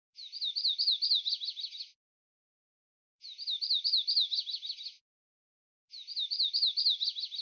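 A songbird's song phrase, repeated three times with short silences between: each phrase is a run of quick, sharply slurred whistled notes that speeds up into a trill near its end.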